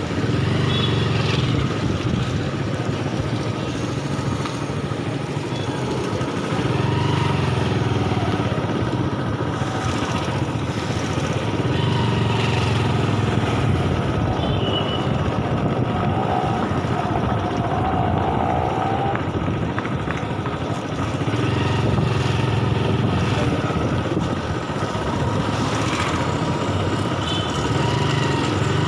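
Busy city street traffic: motorcycle and other vehicle engines running and passing, with a low rumble that swells and fades every few seconds.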